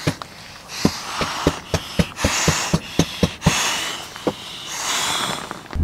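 Someone blowing up an inflatable camping pillow by mouth: four long puffs of breath, with short taps and rustling of nylon gear in between.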